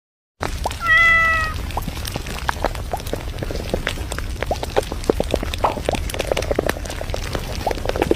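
A cat meows once, a single call about half a second long that drops slightly in pitch at the end. It is followed by many short, irregular clicks and taps over a low rumble.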